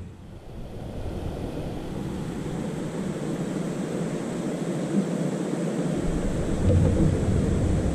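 Wind buffeting the microphone: a low, uneven rumbling rush that builds gradually in loudness.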